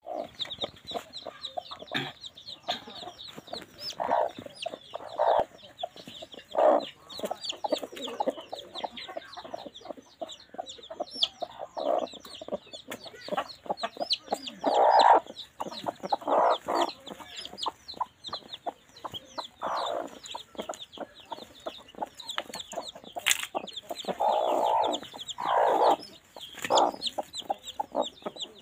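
Domestic hens on the nest clucking in irregular low bursts, the loudest in the middle and near the end, over a steady stream of short, high, rapid chirps.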